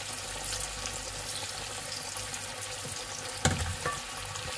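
Oil in a stainless-steel pot bubbling and sizzling steadily as breaded chicken deep-fries. About three and a half seconds in comes a clunk of metal as a mesh strainer is set on the pot, with a lighter knock just after.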